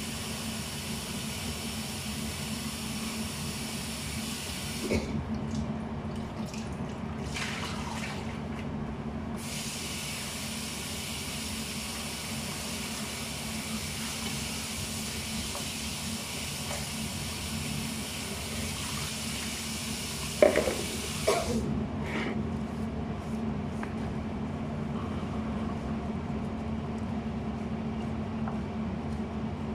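Kitchen tap running in two long spells, stopping about five seconds in and again about twenty seconds in, over a steady low hum. A few short knocks come as the water stops.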